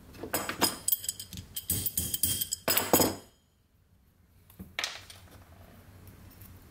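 Quick, irregular clicking and clinking of small metal parts being handled: bolts on a cast-iron cylinder casting knock as a cork head gasket is pressed down over them. The sharpest clinks come just before it goes nearly quiet about three seconds in, and one more click follows a little later.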